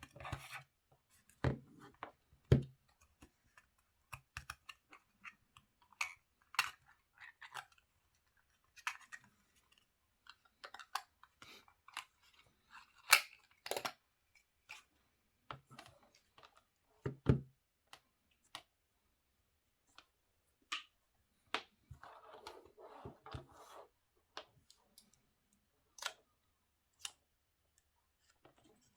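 Packaging of an Apple 85W MagSafe 2 power adapter being handled and opened: scattered clicks, taps and knocks, with a stretch of rustling about two-thirds of the way through.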